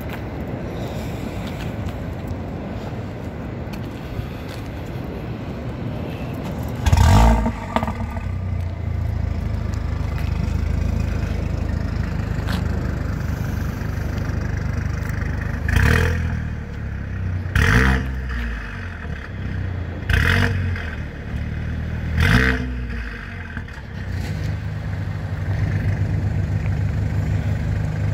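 Mercedes-AMG A45's turbocharged four-cylinder engine starting with a loud flare about seven seconds in and settling to idle, then revved in four sharp throttle blips before idling on at a slightly higher pitch.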